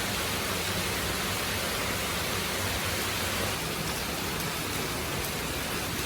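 Steady, even hiss of heavy rain falling.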